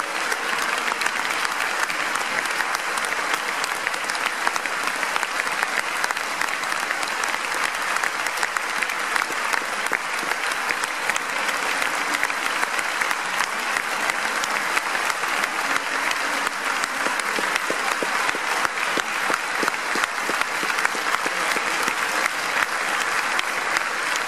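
Concert audience applauding: dense, steady clapping from many hands.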